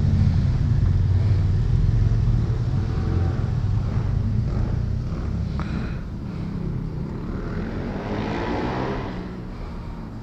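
A motor vehicle's engine running with a low hum, loudest at first and fading gradually, with a swell of rushing noise about eight seconds in.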